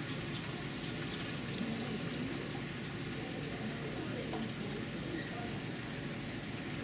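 Steady background noise of a public aquarium hall: an even, rain-like hiss of water with faint, indistinct voices of other visitors.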